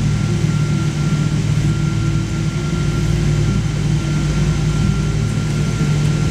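Cabin noise of a Boeing 777-200 taxiing after landing: the engines at idle and the cabin air system make a steady low hum, with a thin steady whine above it.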